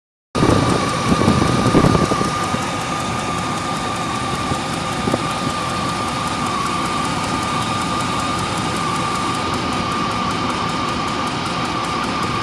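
1998 Range Rover P38 engine running, with its cooling fan loud over it and a steady high whine. Beneath the fan noise is a tick in time with the valves, which the owner takes to be at valve speed.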